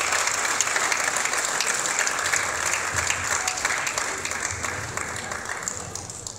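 An audience applauding, a dense patter of many hands clapping that fades over the last couple of seconds.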